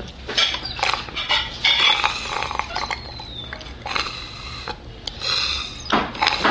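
Dishes and cutlery clinking and clattering in irregular short knocks over a steady low background hum.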